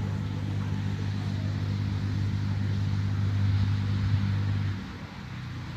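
Electric drive of a level-crossing barrier humming steadily as the barrier arms finish rising, then cutting off abruptly about four-fifths of the way through as the arms reach the upright position.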